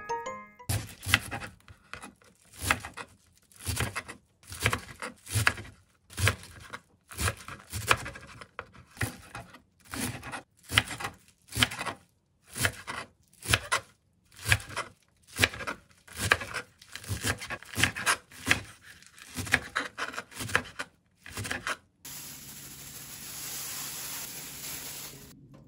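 Kitchen knife chopping garlic chives on a plastic cutting board, one cut after another in a steady rhythm of a little under two a second. Near the end the cutting stops and gives way to about three seconds of steady rustling.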